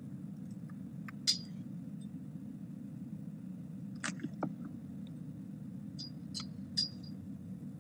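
Steady low hum of room noise, with a few short, sharp clicks and squeaks scattered through it, the loudest about a second in and another cluster near the end.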